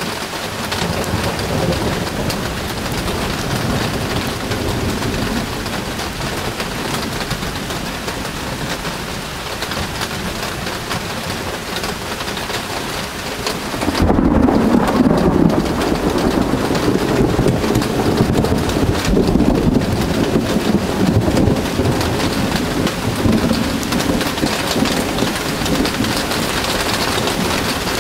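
Rain falling steadily in a thunderstorm. About halfway through, a long, low rumble of thunder sets in suddenly and carries on.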